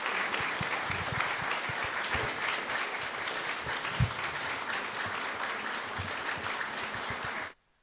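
Audience applauding: steady clapping from many hands that cuts off abruptly near the end.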